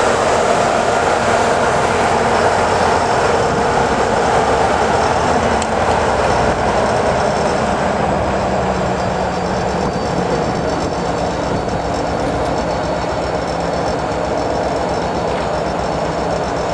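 A train rolling past close by: a steady, loud noise of wheels and cars on the track that eases off slightly toward the end.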